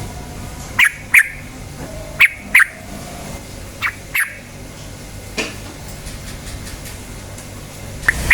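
Yellow-vented bulbul (trucukan) giving short, sharp calls in pairs: three pairs about a second and a half apart, then a few more calls near the end, over a steady low background hum.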